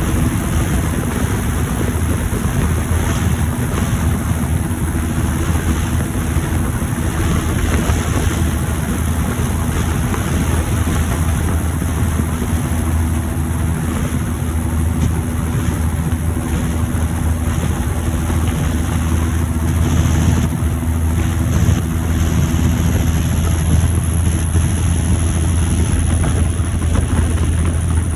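John Deere 7530 Premium tractor's diesel engine running steadily on the road, with a high turbo whistle over the engine note. Over the last few seconds the whistle slides slightly lower in pitch.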